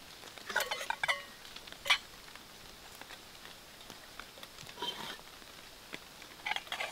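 Small metal camp cookware clinking and knocking as a pot and mug are picked up and set down. The clinks come in a few short clusters, some ringing briefly.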